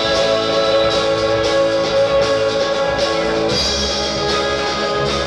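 A live rock band playing loudly through amplifiers, led by electric guitar with drums underneath.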